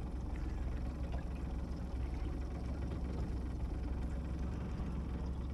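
Boat's outboard motor running steadily at trolling speed: a low, even hum.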